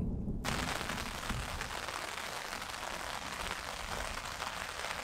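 Steady rain falling on gravel ground, a dense, even patter that sets in about half a second in.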